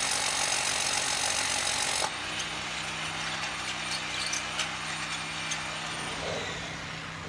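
Cordless hammer drill boring into concrete, its motor whining and hammering, stopping abruptly about two seconds in. After that a steady low engine hum remains, with a few light clicks of the tool being handled.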